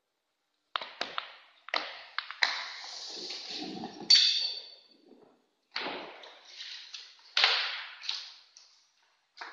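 Handling of a plastic-film banner and the aluminium rail of a retractable banner stand: a run of sharp clicks and crackling rustle of the banner sheet, with a loud ping that rings briefly about four seconds in, then more rustling.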